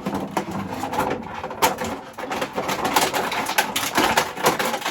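Toy packaging crackling and crinkling loudly as a large action figure is wrestled out of its box, a dense run of sharp crackles that goes on throughout.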